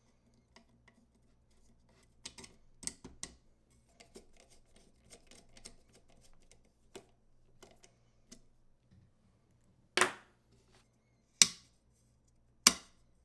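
Small metal clicks and scrapes of a Magpul MBUS 3 front iron sight being slid onto the rifle's rail and its screw put in. Near the end come three loud, sharp clicks, well apart.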